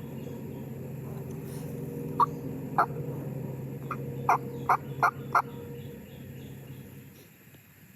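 Turkey calling: six short, sharp notes, two a couple of seconds in and then a quick run of four, over a low steady hum that fades away near the end.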